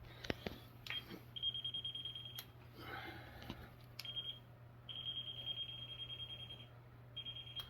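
Non-contact voltage tester beeping: a high-pitched, rapidly pulsed tone in four stretches with short gaps, the longest nearly two seconds, as it is held to the water heater's thermostat wiring. The beeping shows the circuit is live, with power reaching the top and bottom thermostats.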